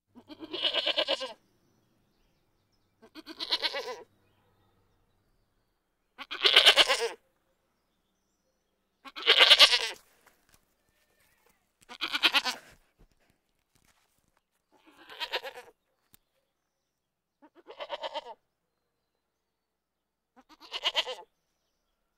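Bleating: eight separate wavering calls, each about a second long, coming about every three seconds, the third and fourth the loudest.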